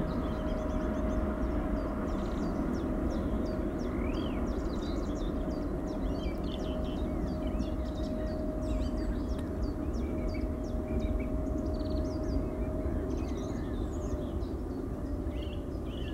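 Twin-engine jet airliner climbing away after takeoff, its engine roar slowly fading as it recedes, with a steady hum running through it. Small birds chirp over it throughout.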